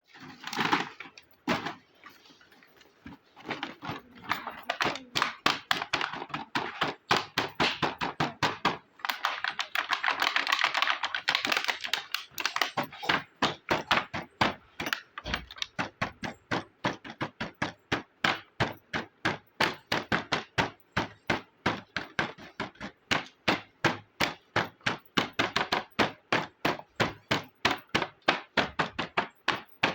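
Small hard plastic toy pieces of a miniature kitchen set tapping and clicking as they are handled: a few separate knocks at the start, then a long run of short, sharp taps, about two or three a second.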